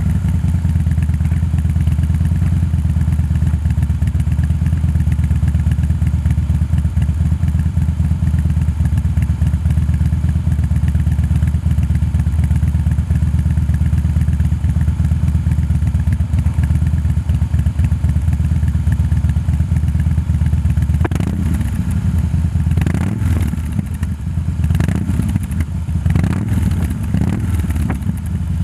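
Harley-Davidson V-twin idling through Khrome Werks 3-inch HP-Plus slip-on mufflers with a very deep, steady rumble. In the last seven seconds or so the sound turns uneven, with several short swells.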